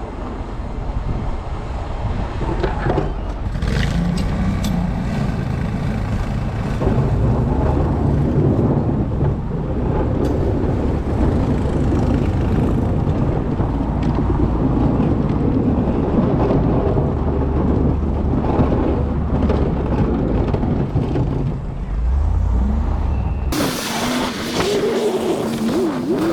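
Snow-clearing vehicle's engine running steadily under load while plowing, with occasional clanks. Near the end the sound cuts abruptly to a different, brighter sound with wavering tones.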